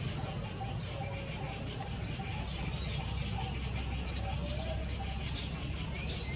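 A bird's short, high chirps repeated about twice a second over a steady low background rumble.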